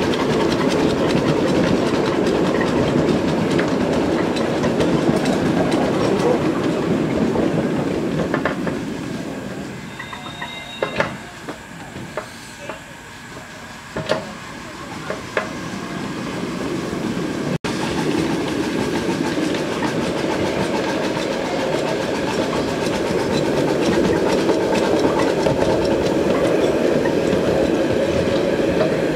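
Wheels of a ride-on scale railway train rumbling and clacking over the track, heard from aboard a riding car. The rumble quietens for several seconds midway, with a few sharp clicks, then builds again.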